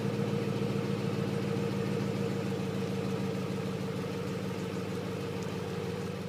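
The 6.4-litre HEMI V8 of a 2014 Jeep Grand Cherokee SRT idles steadily through an aftermarket Borla ATAK exhaust, heard at the tailpipes as an even, rapid pulse. It is picked up by an iPhone microphone.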